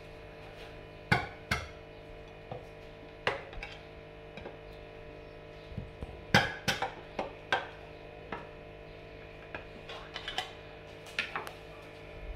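A kitchen knife punched through the lid of a metal can of coconut cream by slapping its handle with the palm: a dozen or so sharp metallic knocks at irregular gaps, over a faint steady hum.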